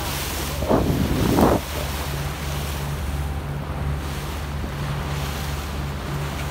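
Boat engine running steadily under wind buffeting the microphone and water rushing past the hull. A short, louder rush of noise comes about a second in.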